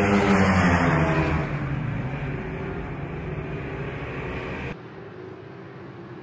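Two Ducati superbikes racing past at speed, their engine note loud at first and then falling in pitch as they go by. About five seconds in the sound cuts abruptly to a quieter, thinner engine note.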